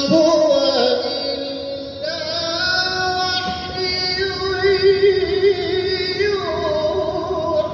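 A male qari reciting the Quran in the melodic competition style, holding long notes with wavering ornaments. The held line steps down in pitch about six seconds in.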